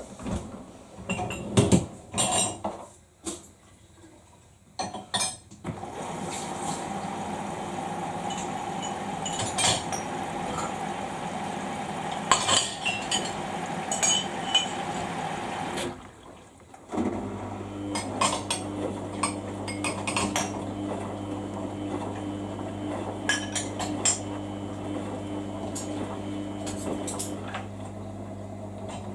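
Samsung washing machine running a 15-minute quick wash: a few clicks and knocks, then a steady hum with scattered clinks. The hum stops briefly past the middle and starts again as a lower steady motor hum.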